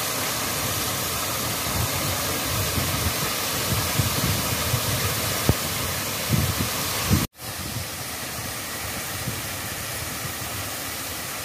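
Water pouring over a small concrete weir into a river, a steady rushing hiss, with a few brief knocks near the middle. About seven seconds in it cuts out for an instant and the rush carries on a little quieter.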